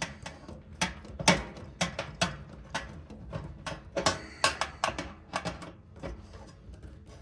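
Irregular clicks and light knocks of a screwdriver and sheet-metal heater parts being handled while the four screws holding a part of an electric heater are taken out. A faint steady hum runs underneath.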